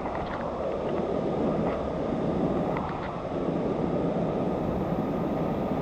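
Steady rushing noise of waterfalls and fast-flowing water, with a few faint ticks over it.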